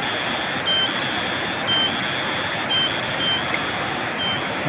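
Fast-flowing muddy river rushing steadily around a wading man. Above it, a high pulsing buzz switches on and off about once a second.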